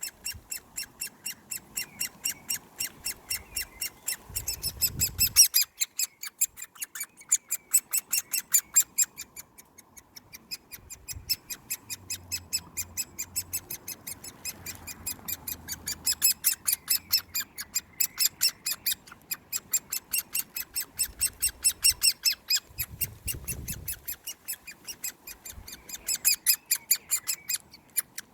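Great spotted woodpecker chick begging: an insistent run of short, sharp, high calls at about four a second, breaking off briefly twice. A few low rustles of handling sound under the calls.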